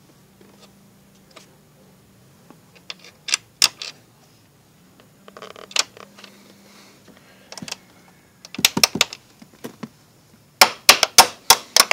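Scattered small metallic clicks and taps as a bolt is fitted back into a car door fitting over a packed-in piece of rubber, then, from about nine seconds in, fast runs of sharp clicks several per second as the bolt is worked in with a tool.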